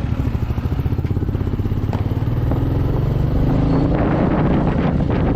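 Royal Enfield Meteor 350's single-cylinder engine running under way with a pulsing exhaust beat, its pitch rising over the last couple of seconds as the bike accelerates.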